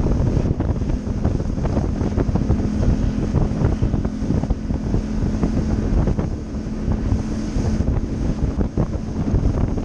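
Heavy wind buffeting the microphone, with a steady low hum underneath.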